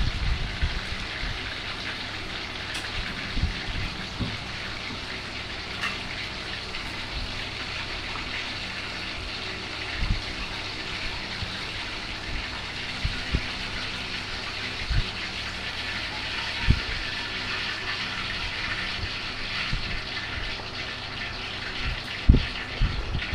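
Water running or pouring steadily, with a few short low knocks of handling.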